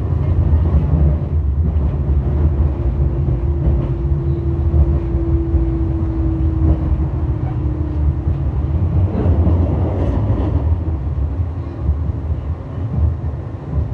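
Metro Transportes do Sul light-rail tram running, heard from inside the car: a steady low rumble, with a humming tone from about two seconds in that sags slightly in pitch before fading, and a lower hum near the end.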